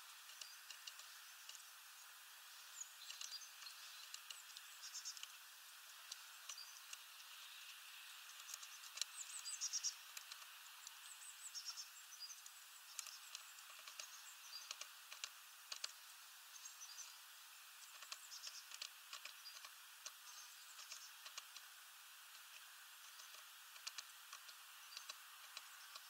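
Faint, irregular tapping and clicking of tits pecking and hammering at sunflower seeds on a window-ledge feeder, with a louder cluster of taps about nine to ten seconds in, over a low hiss.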